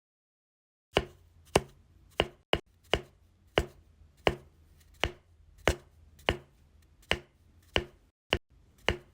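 A steady series of sharp knocks, about three every two seconds, starting about a second in after a short silence.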